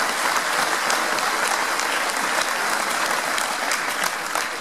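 Audience applauding: dense, steady clapping from a large crowd, easing off slightly near the end.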